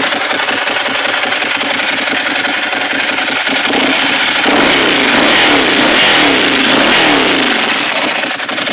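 Ducati Monster 796's air-cooled L-twin engine idling, then blipped on the throttle several times from about four seconds in, the pitch rising and falling with each rev, before dropping back to idle near the end.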